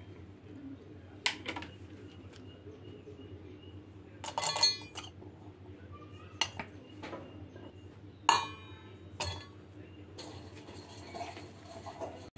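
Stainless steel kitchenware clinking. About four seconds in, a quick rattle of almonds and cashews dropping into a steel cup, then a few single knocks of steel on the stone counter, the loudest just past eight seconds.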